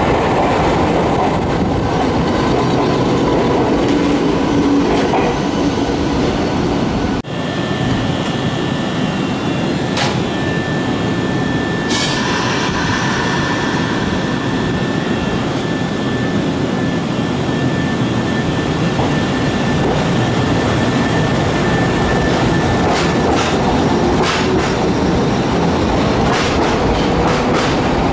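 Electric trains running along a station platform: steady wheel and running rumble, cut off briefly about seven seconds in, then a Nankai Southern limited express with a steady whine and a few sharp clicks. In the last few seconds its wheels clatter over rail joints as the cars move past.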